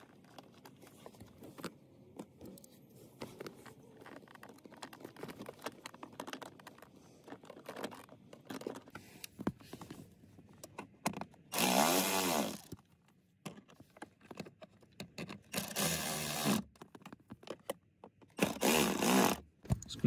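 Cordless power driver running in three short bursts of about a second each, its motor pitch rising and falling as it drives in the 8 mm screws that hold the blower motor resistor. Faint clicks and rustling of hands on the wiring and tool before the first burst.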